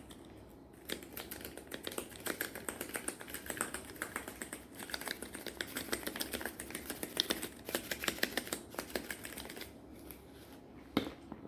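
Garlic salt shaken from a plastic shaker onto raw chicken legs: a fast run of light clicking rattles that stops a second or two before the end.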